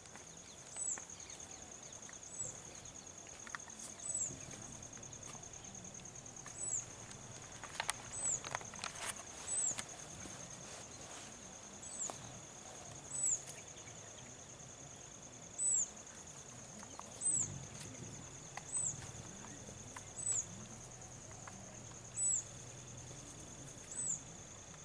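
Steady high-pitched insect drone in forest, with a short high chirp repeating every second or two and a few faint clicks about eight seconds in.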